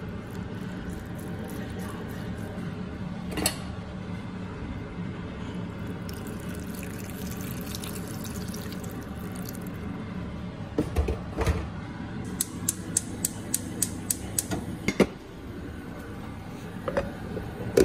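Liquid being poured into a pot of layered napa cabbage and pork. Past the middle comes a run of quick sharp clicks, about four a second, that stops abruptly.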